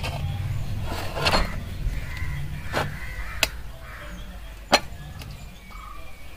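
Small peeled potatoes dropped one by one into a stainless steel bowl, giving several sharp knocks a second or so apart.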